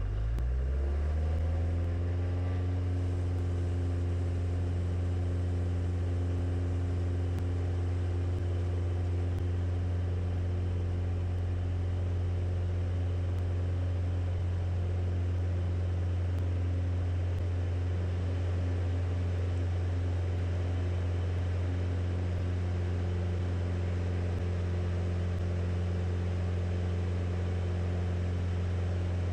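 Single-engine light aircraft's piston engine and propeller opened up to full power for take-off. The drone rises in pitch over the first second or two, then holds a steady full-power note through the take-off run and climb-out, heard from inside the cockpit.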